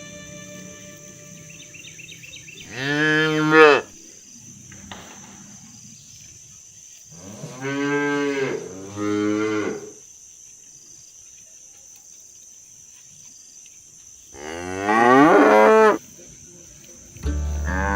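Cows mooing: about five loud, drawn-out moos, one about three seconds in, two close together around eight and nine seconds, a longer rising one about fifteen seconds in, and another starting near the end.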